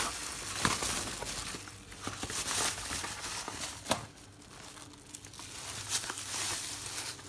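Thin plastic bag crinkling and rustling as it is handled, with a few sharp clicks.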